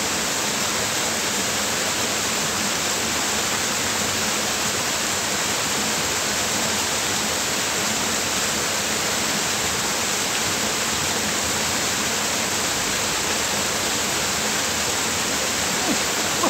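Steady rush of a small stream cascade pouring into a pool.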